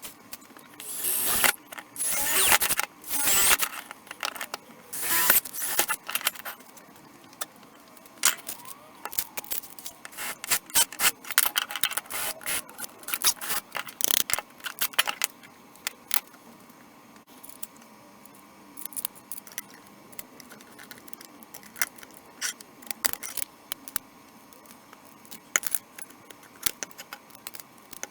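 Clinking and clattering handling noises, with dense bursts of scraping and rattling over the first half, then scattered sharp clicks and knocks.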